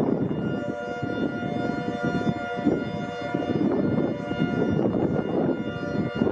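Air raid siren sounding at a steady, held pitch, several tones ringing together like a chord, over a loud low rumble of background noise.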